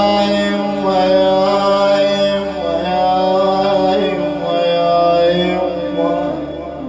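Background music of chanted voices holding long, slowly shifting notes.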